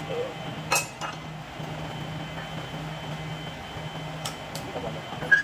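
A few sharp metallic clinks of metal parts or tools being handled, the loudest about a second in and again just before the end, over a steady low hum.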